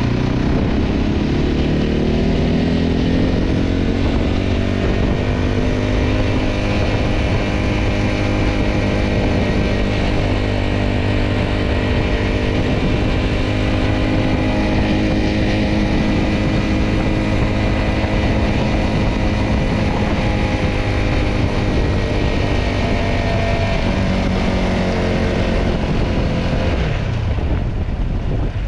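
Motorcycle engine running under way. It picks up speed over the first couple of seconds, holds a steady cruise, then the pitch falls as the bike slows near the end.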